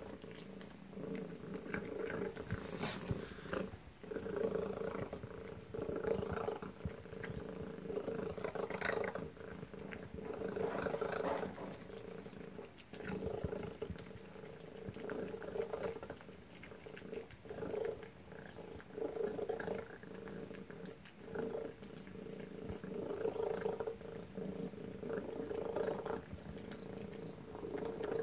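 Tabby cat eating wet cat food from a stainless steel bowl: wet chewing and lapping in bursts every second or two, with a steady hum that comes and goes with the bursts.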